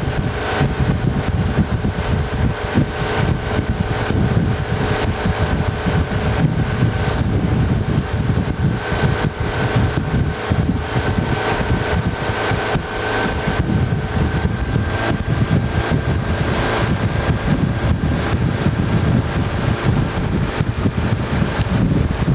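A steady motor drone holding several fixed pitches, with low wind rumble buffeting the microphone.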